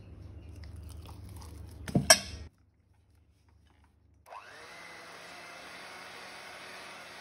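Thick custard tipped from a ceramic bowl into a stainless steel bowl, with two sharp knocks about two seconds in. Then an electric hand mixer starts about four seconds in and runs steadily at low speed with a whine, its beaters working cold, thick custard in the steel bowl.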